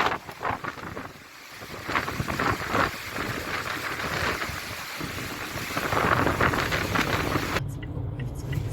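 Wind gusting across the microphone, a rough rushing noise that swells and drops, with a lull about a second in. Near the end it cuts abruptly to the steady low hum of a vehicle running.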